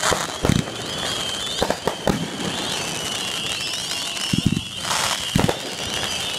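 Fireworks display: aerial shells going off in a string of sharp bangs at irregular intervals, with a brief hissing burst about five seconds in.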